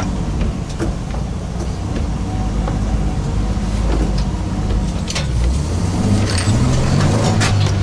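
1989 Ford Transit van's petrol engine running on the move, heard from inside the cab, with the revs climbing in the second half as it accelerates. It is running on a newly fitted carburettor.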